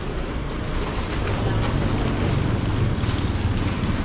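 Wire shopping cart rolling over a concrete floor, its wheels rumbling and the basket rattling steadily, a little louder from about a second in.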